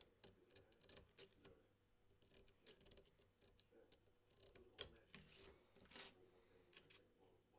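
Faint, irregular small clicks and a couple of brief scrapes from hand tools working on a smartphone's parts.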